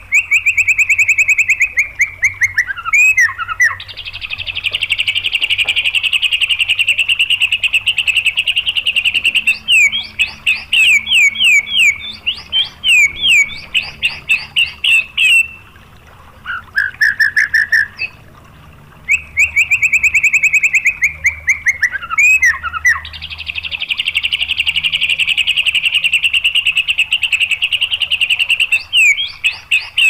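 White-rumped shama singing loudly in 'tembakan' style: runs of rapid repeated whistled notes and sweeps, and a long fast trill lasting several seconds, broken by short pauses. The same song sequence comes round again about halfway through.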